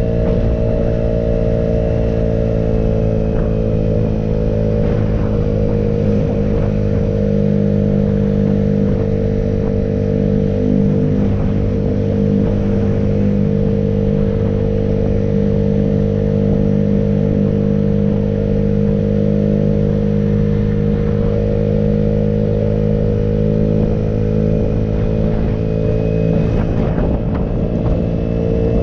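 Engine of the vehicle carrying the camera running at a steady cruising speed, heard from on board, with road and wind noise. The engine pitch sags a little around the middle and picks up slightly near the end.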